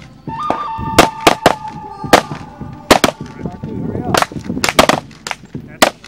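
Gunfire from a pistol and AR-style rifles: about ten sharp shots at uneven intervals, some in quick pairs.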